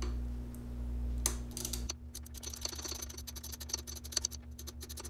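8 mm socket ratchet clicking in a fast, even run of ticks as a bolt is backed out, starting about two seconds in after a single knock.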